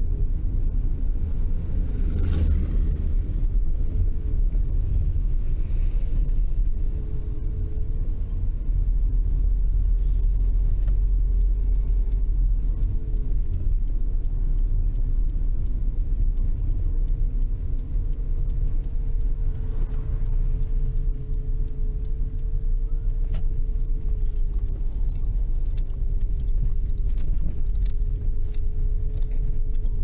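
Car on the move, heard from inside the cabin: a steady low road and engine rumble with a faint wavering engine tone. Light clicks and rattles come through in the second half.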